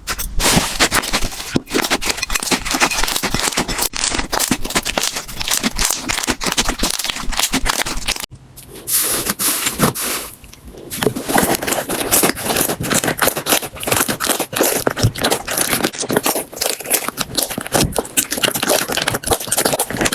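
Slime being squeezed, poked and pressed by hand, giving a dense run of crackling, popping clicks. The sound breaks off briefly about eight seconds in and goes quieter for a moment around ten seconds, then the crackling picks up again.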